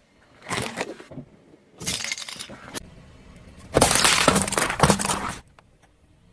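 Brittle objects crunching and cracking as they are crushed under a car tyre, in three bursts: two short ones in the first three seconds, then a longer, louder one from about four to five and a half seconds in.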